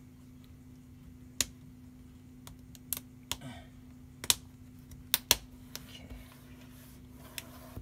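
Plastic screen bezel of an HP Pavilion 15 laptop being pressed back onto the display lid. Its clips snap into place with about eight sharp, irregularly spaced clicks, a few of them loud.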